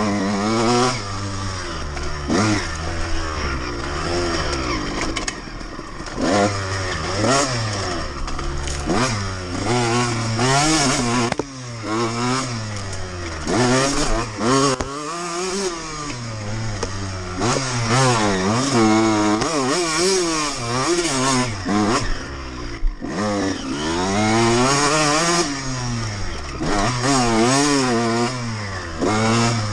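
2002 Honda CR125R's 125 cc two-stroke single-cylinder engine under hard riding. Its pitch rises and falls over and over as the throttle is opened and shut through the corners, with a few brief lulls when the throttle is closed.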